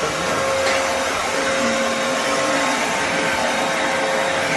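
Vo.Temm vacuum cleaner running steadily: a constant rush of air with a steady motor whine.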